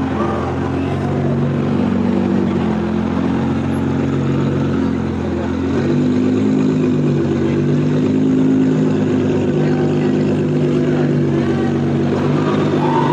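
Car engine running at low revs as it creeps past, a steady rumble with a brief waver in pitch a couple of seconds in.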